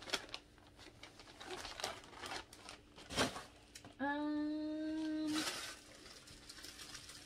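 Packaging being handled: crinkling, rustling and small clicks. About four seconds in, a steady humming tone holds for about a second and a half, the loudest sound here.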